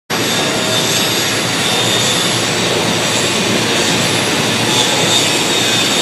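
Angle grinder running steadily against steel: a harsh, even grinding noise with a faint high whine.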